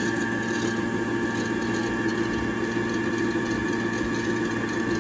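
Euro-Pro electronic sewing machine running steadily with the foot pedal held down, its motor spinning the bobbin winder to fill a bobbin with thread. An even whir at constant speed.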